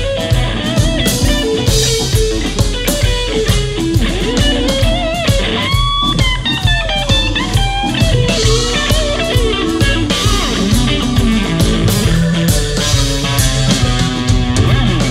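Live blues band playing an instrumental passage: an electric guitar lead with bending, sliding notes over a steady bass line and drums.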